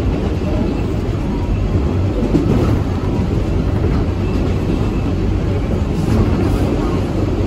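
Kawasaki R142A subway train standing at the platform with its doors closed: a steady low hum and rumble from the stationary cars.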